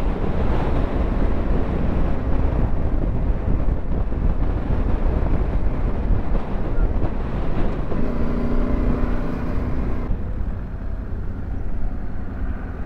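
Yamaha Ténéré 700 parallel-twin adventure motorcycle running on the move, mixed with heavy wind rush over a helmet-mounted microphone. A steady engine tone stands out for about two seconds around two-thirds of the way in.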